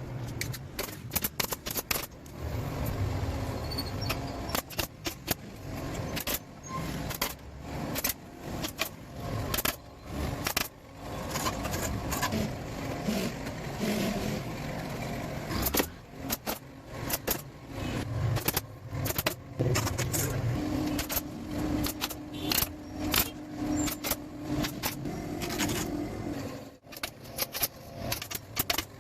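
Many sharp, irregular clicks and knocks from hand-tool work on a sofa frame, over a low steady rumble. A steady hum joins in for several seconds later on.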